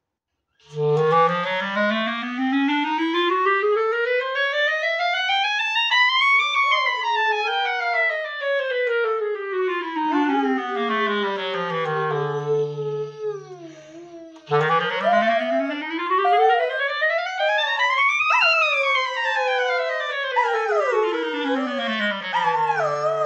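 Clarinet playing two long sweeps from a low note up to a high one and back down, each ending on a held low note. In the last few seconds a dog howls along with it, a wavering howl over the clarinet.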